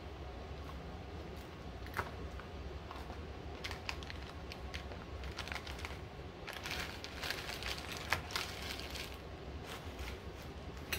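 Paper cupcake liners crinkling and rustling as gloved hands push lotion bars out of silicone molds and tuck them into the liners. There are scattered sharp clicks and a dense run of crinkling from about six to nine seconds in, over a low steady hum.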